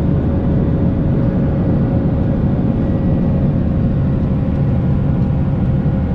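Heavy truck's engine and road noise heard inside the cab, a steady low rumble with a faint steady whine.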